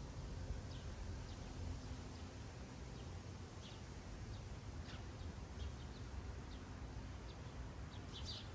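Birds chirping in short, scattered high calls over a steady low outdoor rumble.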